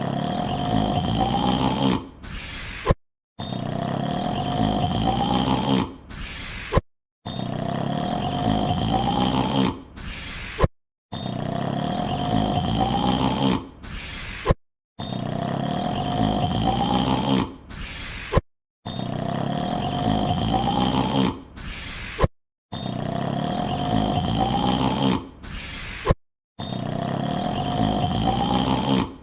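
A man's drawn-out yawn, the same short recording repeated over and over: each yawn lasts about two and a half seconds, rising slowly in pitch, and a thin high whine runs under each one. It is followed by a brief gap of silence, and the next begins about every four seconds, some eight times in all.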